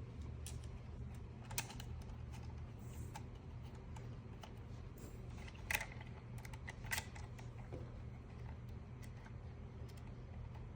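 Light, scattered clicks and taps of small RC-car parts being handled and fitted, during reassembly of a Traxxas Rustler's front hub and bearing. The clicks come over a steady low hum.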